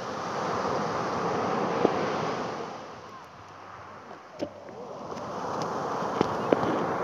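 Small sea waves breaking on a pebble shore and washing up the stones, swelling twice: a surge at the start, a lull in the middle and a second surge near the end. A few sharp clicks stand out, the loudest pair near the end.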